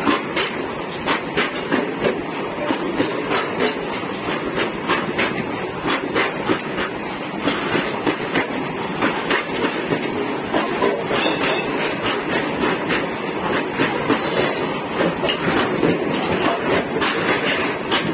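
A goods train of loaded open freight wagons rolling past close by: a steady rumble of steel wheels on rail, broken by frequent irregular clacks as the wheels pass over rail joints.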